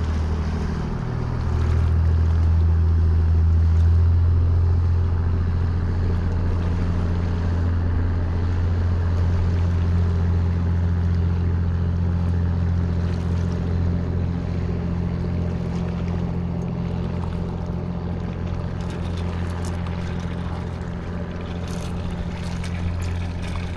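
Motorboat engine droning steadily as the boat passes, loudest a few seconds in and slowly fading.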